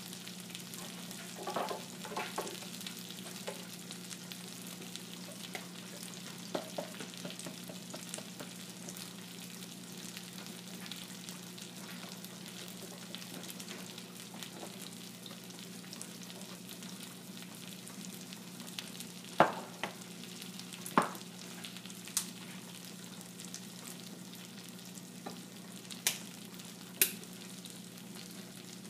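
Food sizzling in a frying pan over a gas burner, a steady frying hiss with a low hum underneath. A few clinks about two seconds in, then several sharp clicks or knocks in the second half.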